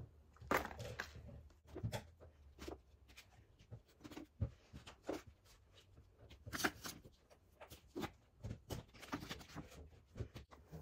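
Small plastic toiletries and nail buffer blocks being handled and lifted out of a wooden drawer: irregular light clicks and knocks of items against each other and the wood.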